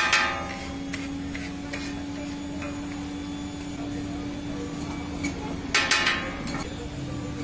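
Metal spatula scraping and tapping on a flat dosa griddle as a filling is chopped and stirred, with two ringing metallic clangs, one at the start and another about six seconds in. A steady low hum runs underneath.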